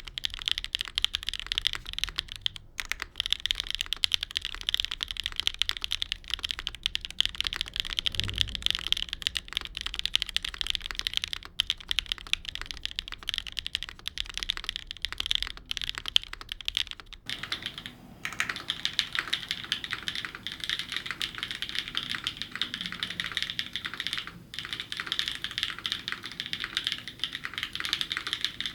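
Continuous fast typing on a dnworks SEVEN mechanical keyboard with stock Wuque WS Arowana Gold linear switches, an aluminium plate in a dual O-ring mount and GMK keycaps: a dense stream of keystrokes. About two thirds of the way through, the sound changes as the recording switches from a Sennheiser MKH 50 condenser mic to the camera's built-in mic.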